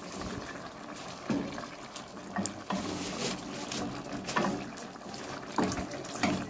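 Spatula scraping and knocking against an aluminium kadai as fried fish are turned in simmering gravy, over a steady hiss from the simmering gravy. The knocks come several times, scattered.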